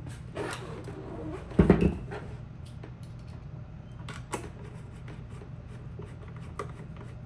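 Hand-tool work on the adjuster screw of an Onewheel GT's VRH bracket: a heavy clunk about a second and a half in, then scattered light clicks as a hex driver works the screw.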